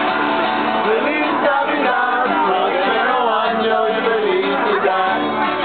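A group of carolers singing a Christmas carol together in mixed voices, to a strummed acoustic guitar.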